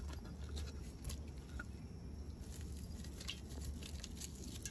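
Sliced red onion dropped by hand into water in a stainless steel pot: scattered soft splashes and small taps, over a steady low rumble.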